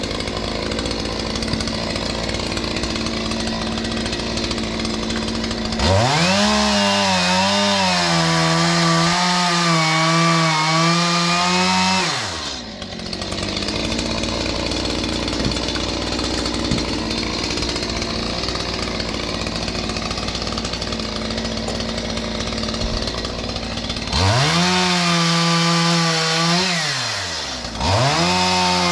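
Stihl MS181 two-stroke petrol chainsaw idling, then revved up to full throttle for a cut about six seconds in and dropped back to idle after about six seconds. It revs up again for two shorter cuts near the end, its pitch sagging slightly under load.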